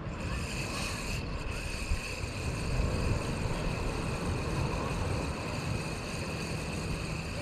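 Wind buffeting the microphone, a steady low rumble, with a faint constant high whine over it.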